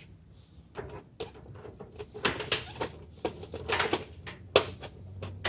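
An LED T5 tube clicking and scraping against the sockets and metal reflector of a fluorescent fixture as it is slid in and locked into place. A string of sharp clicks and short scrapes, sparse at first and coming thick from about two seconds in, with the loudest click near the end.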